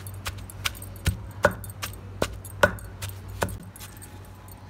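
Pestle pounding garlic into a mint and red-chilli spice mix in a mortar: sharp knocks about two or three a second, stopping about three and a half seconds in.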